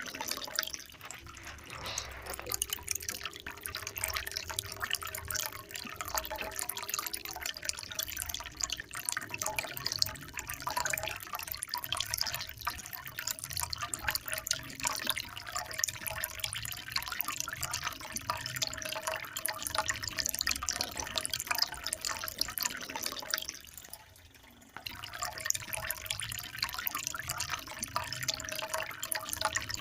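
Trickling, splashing water with many small drips. It dips briefly for about a second past the three-quarter mark.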